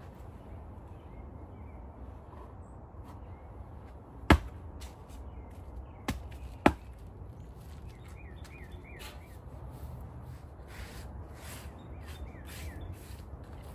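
Outdoor ambience with a steady low rumble, broken by three sharp knocks, one about four seconds in and a quick pair about two seconds later; a bird chirps faintly in the background in the second half.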